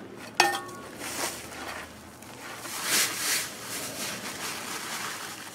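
An aluminum shovel is set down on gravelly ground about half a second in, with a sharp clank and a brief metallic ring. Then comes the rustling of an empty woven sandbag being picked up and shaken open, swelling twice, most strongly around three seconds in.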